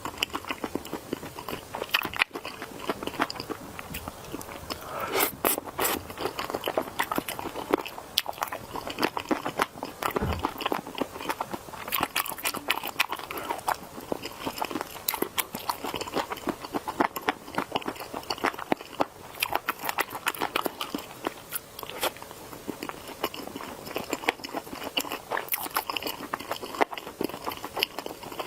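Close-miked person biting and chewing food with a steady stream of crunchy, crackling mouth sounds.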